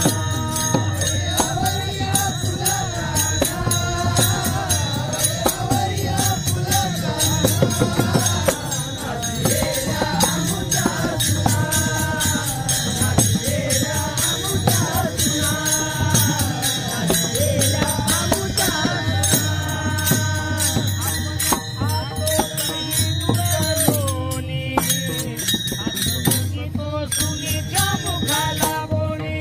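Warkari men singing a Marathi devotional gavlan together, with many brass hand cymbals (taal) clashing in a fast, steady beat and a drum underneath.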